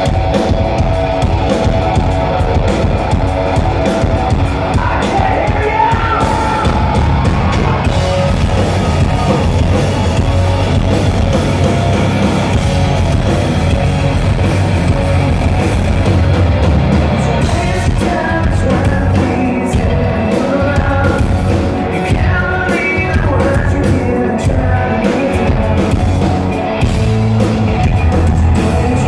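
Rock band playing loud and live, with electric guitars, bass and drums and a voice singing, as heard from the audience.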